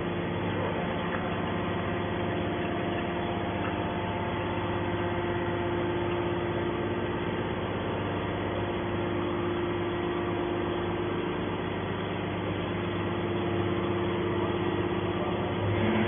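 Hydraulic scrap metal baler's power unit running with a steady hum that holds several fixed tones, with no knocks or changes in pitch.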